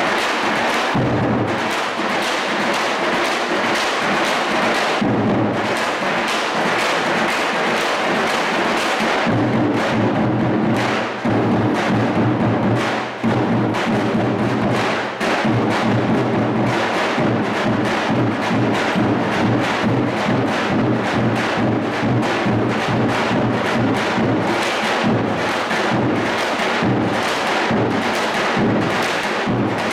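Turkish folk music driven by frame drums beaten in a quick, steady rhythm. The drumming grows fuller and denser about nine seconds in, with a few brief breaks soon after.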